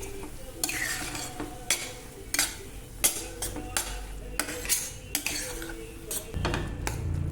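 A utensil stirring in a pot, clinking against its sides in about a dozen irregular, sharp strikes. Low background music comes in near the end.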